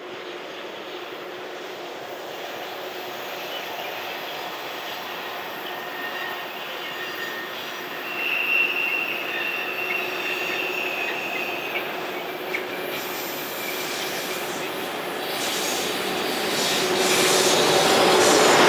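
Electric train approaching on the Arlberg line, its running noise growing steadily louder, with a thin high wheel squeal about eight to ten seconds in.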